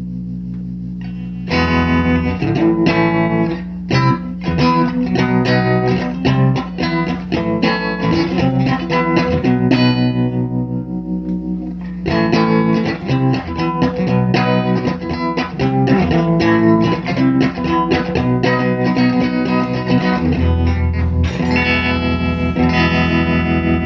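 Electric guitar played through a restored 1969 Elk Echo Pro-Sonic tube amp: a held note rings, then a long run of picked notes starts about a second and a half in, pauses briefly near the middle, and carries on with a deep low note near the end.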